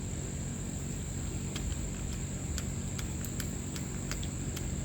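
A series of about ten light, irregular clicks from a hand tool working the hold-down screw of a Poulan chainsaw's recoil starter pulley, starting about a second and a half in. Behind it, a steady high cricket chirring.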